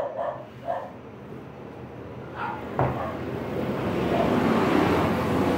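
A wooden bench frame knocked down onto a plywood board, a single sharp wooden knock nearly three seconds in. After it a broad rushing noise swells to become the loudest sound.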